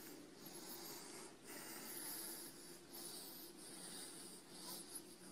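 Near silence: faint room tone with a few soft rustling noises close to the phone's microphone.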